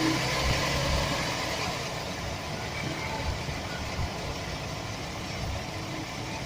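Chevy Express van's 4.3 L V6 idling, easing down over the first couple of seconds and then running steady. The uploader blames a rattle in this van on a bad starter motor gear bumping against the flexplate.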